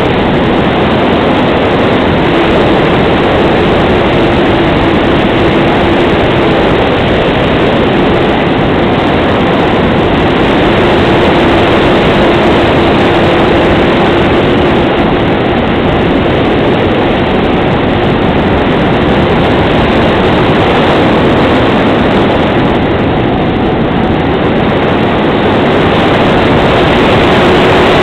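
Loud, steady rush of airflow over the microphone of a camera mounted on a Grunau Baby glider in flight, with a faint humming tone that comes and goes.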